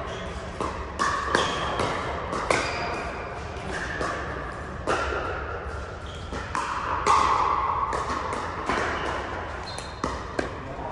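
Pickleball paddles popping against hard plastic balls: sharp, irregular pops, some from neighbouring courts, echoing in a large hall.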